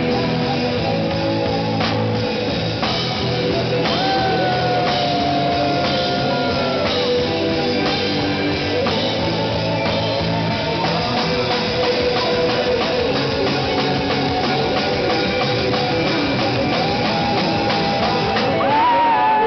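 Live rock band playing, with a drum kit and electric guitar. Long held notes sound about four seconds in and again near the end.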